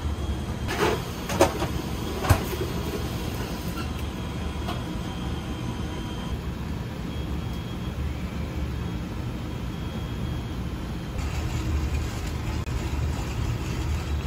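Steady low machine hum of a restaurant kitchen, with three sharp knocks in the first two and a half seconds.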